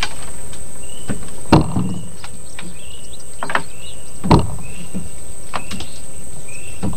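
A freshly landed grouper, hanging on the line, knocks against a wooden boat deck: two sharp thumps about three seconds apart, with lighter clicks between. Behind them run a steady outdoor hiss, a high insect drone and short chirps repeating about once a second.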